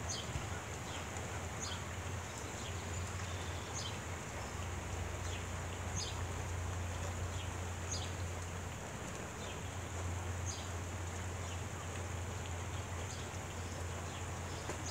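Steady rain falling, a continuous hiss, with short high bird chirps about every one to two seconds.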